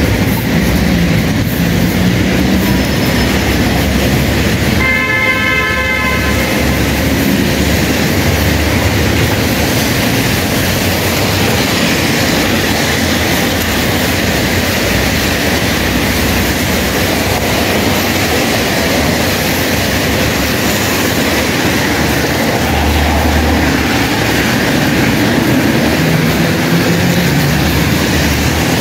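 Steady rush of rain and car tyres on a wet road. A horn sounds briefly about five seconds in.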